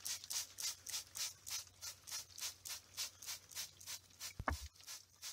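Faint, even hissing spurts, about four a second, of water being sprayed onto the dry concrete shell to wet it down before the next coat. There is one low thump about four and a half seconds in.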